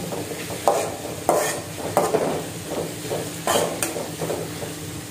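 Metal spatula scraping and knocking against a metal kadai, with a stroke about every second, as onions, carrots and curry leaves are stirred. A light sizzle of the vegetables frying in oil runs underneath while the onions are sautéed until they wilt.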